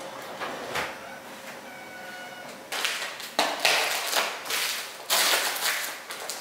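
A kitchen drawer slides open and stops with a soft knock in the first second. From about three seconds in come loud bursts of crinkling and rustling as plastic-wrapped packets and boxes are handled and packed into clear plastic storage boxes.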